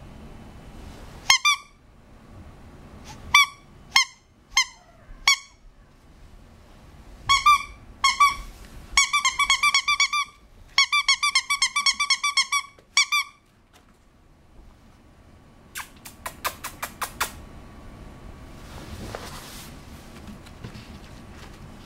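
A rubber squeaky toy squeezed over and over, giving short, identical high squeaks: a few single squeaks, then two fast runs of squeaks. A quick run of sharp clicks follows near the end.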